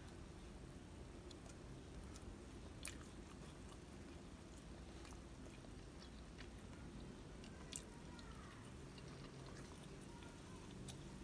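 Near silence over a faint low hum, with a few faint, sharp clicks of wooden chopsticks touching and picking at a tofu omelette on a wooden plate.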